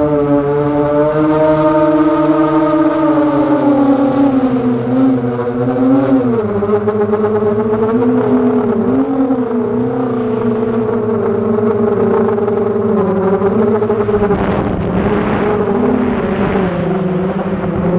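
FPV quadcopter's brushless motors and propellers whining, heard from its onboard camera. The pitch rises and falls smoothly with the throttle and drops lower about six seconds in.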